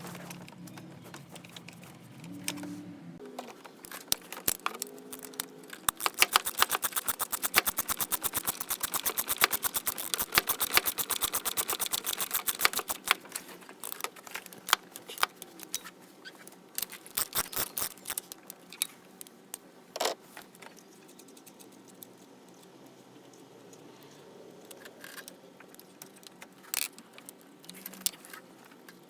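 Ratchet wrench clicking in a fast, even run for several seconds, then scattered clicks and knocks of tools against metal.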